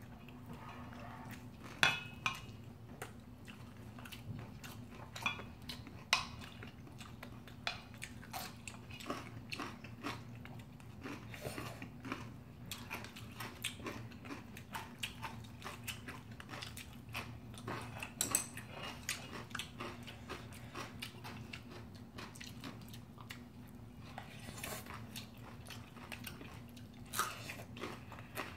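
Close-up eating sounds: two people chewing mouthfuls of bibimbap, with many small clicks and taps of spoons against a stainless steel mixing bowl and a few louder clinks. A low steady hum runs underneath.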